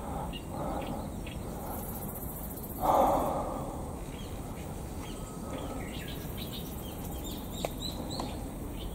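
Woodland ambience: a steady faint outdoor hiss with a brief louder noise about three seconds in, then a run of short, high bird chirps through the second half.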